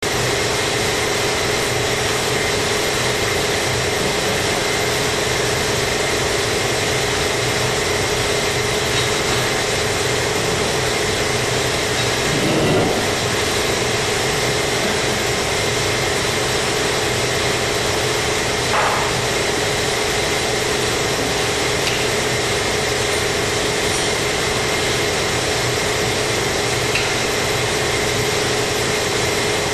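Steady machine drone, engine-like, with a few constant tones running through it and two brief louder sounds, about halfway through and again some six seconds later.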